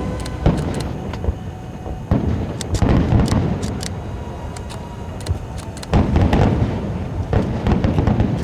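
Aerial fireworks bursting: repeated deep booms, heaviest about two seconds in and again about six seconds in, mixed with sharp crackling pops.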